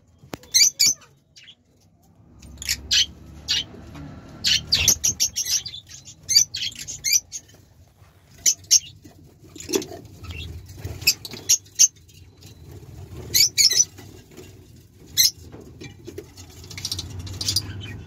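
Lovebirds chirping in short, sharp, high-pitched bursts, grouped in little clusters every second or two, over a low rumble.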